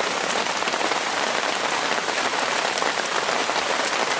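Steady rushing water noise with faint scattered ticks through it.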